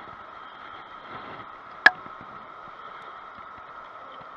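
Steady background noise, with one sharp click about two seconds in.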